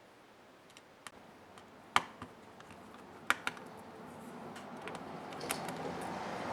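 Sharp clicks and taps of small laptop parts and plastic being handled during disassembly: one loud click about two seconds in and a quick pair a second later, then a rustling, scraping noise that grows louder toward the end.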